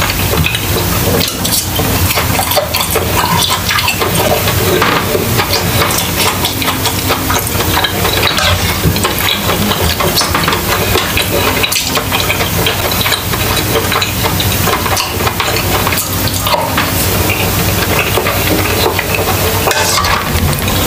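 Pork steak sizzling steadily on an electric grill, with close-miked eating sounds and a metal spoon stirring and scraping through thick lomi noodle soup in a metal pan.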